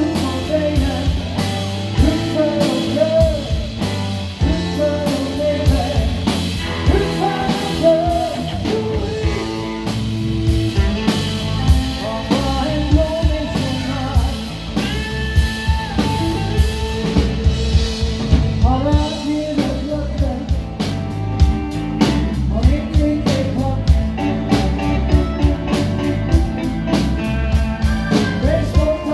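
Blues-rock band playing live: a man singing over electric guitars, electric bass and a drum kit.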